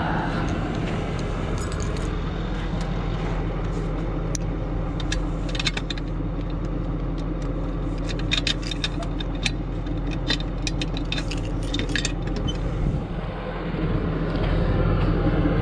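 Tow truck engine idling steadily under a run of sharp metallic clinks and rattles as metal towing gear is handled in the truck bed, thickest in the middle. The engine sound grows louder near the end.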